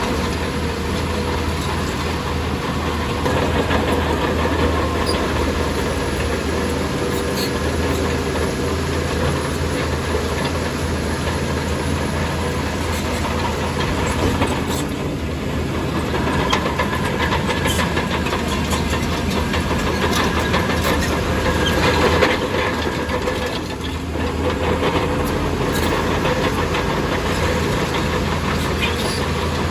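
Heavy earthmoving machine's diesel engine running steadily, with scattered metallic clanks and knocks.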